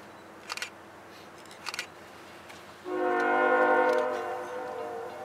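Diesel freight locomotive's multi-chime air horn sounding one long blast for a grade crossing, starting suddenly about three seconds in and fading off.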